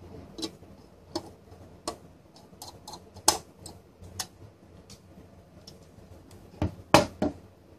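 A small metal-cased Trendnet gigabit network switch being picked up, turned over and handled on a wooden desk: a scattering of light clicks and taps, then three louder knocks close together near the end as it is set back down on the desktop.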